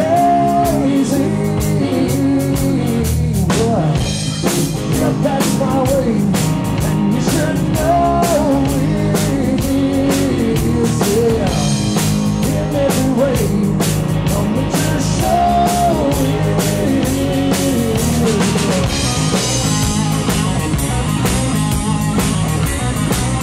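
Live rock band playing electric guitar, bass guitar and drum kit, loud and steady, with a pitched line bending up and down over the beat.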